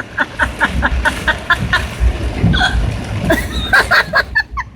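A person laughing hysterically in fast, repeated bursts, about five a second, in two runs with a short break in the middle, over the low rumble of a car.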